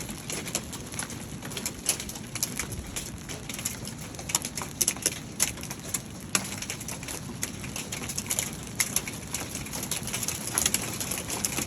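Hailstones hitting a metal roof: a steady patter broken by many irregular sharp pings and knocks from larger stones.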